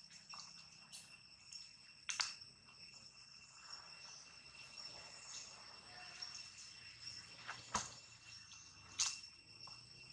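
Steady high-pitched insect trill, like crickets, running throughout. A few sharp clicks or cracks sound over it, about two seconds in and twice near the end.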